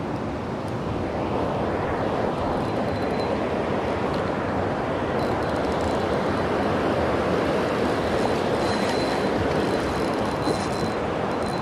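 Rushing river water, a steady even rush from a fast riffle. A brief splash about ten seconds in, as a hooked salmon thrashes at the surface.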